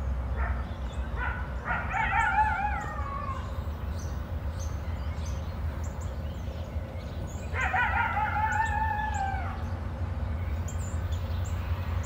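Two long, wavering animal calls, each about two seconds and falling in pitch at the end, one about two seconds in and one about eight seconds in. Under them is the low, steady rumble of diesel locomotives, with faint chirps of small birds.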